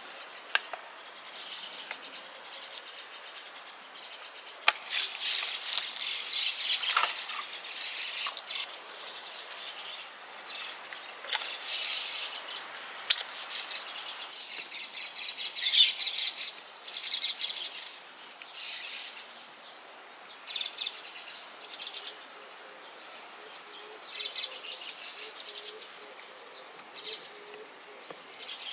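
Small birds chirping and calling again and again, with a few sharp clicks in between.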